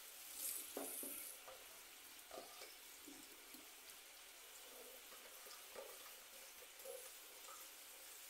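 Chicken thighs frying in oil in a pan: a faint, steady sizzle, with a few soft taps now and then.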